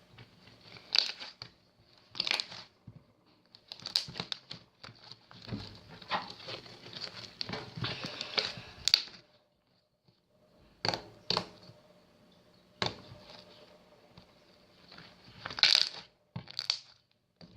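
Hands kneading fluffy shaving-foam slime as the activator is worked in: irregular sticky crackles and squelches, with a short pause about two-thirds of the way through.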